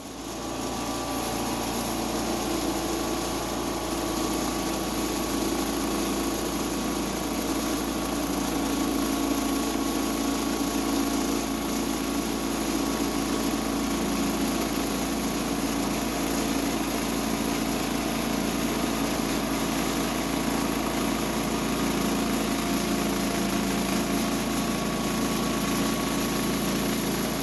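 Small gasoline engine of a Woodland Mills HM126 portable bandsaw sawmill running steadily, starting abruptly, while milling a pecan log.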